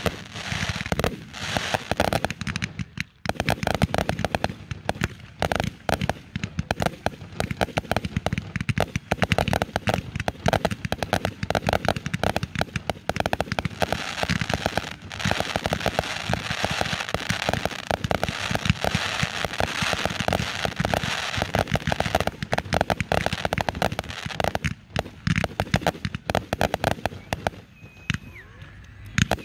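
Aerial fireworks firing in a rapid, dense barrage: launches and bursts come many times a second with a crackle between them. The firing thins out near the end.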